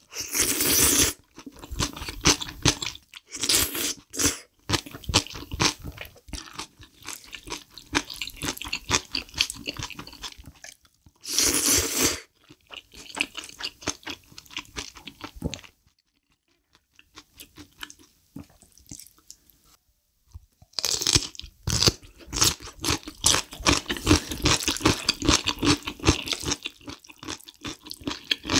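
Close-miked eating: slurps of black bean instant noodles and crunchy chewing of kimchi. Strong slurping bursts come at the start, about 4 seconds in, about 12 seconds in and again about 21 seconds in, with a quieter lull in between.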